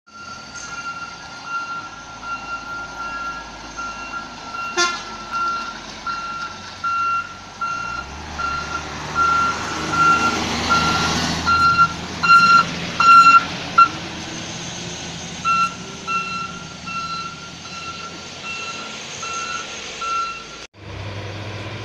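A heavy vehicle's warning beeper sounding steadily about twice a second, with the diesel engine and tyre noise of a large coach or truck swelling as it passes close about halfway through. A single sharp click comes about five seconds in, and the sound cuts off abruptly near the end.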